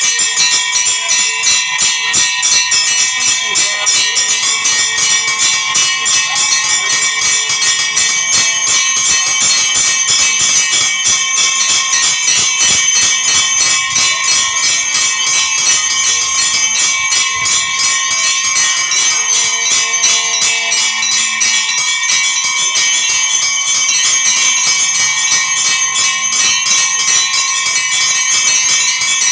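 Temple bells ringing continuously with rapid, even strikes, several bell tones sounding together.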